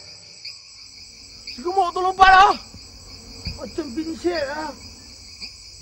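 Steady chirping of crickets, a continuous high trill that pulses gently. A man's short wordless vocal sounds break in about two seconds in and again just past four seconds.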